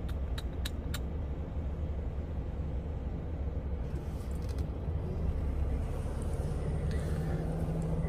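Heavy truck's diesel engine running steadily with a low rumble, with a few quick clicks in the first second.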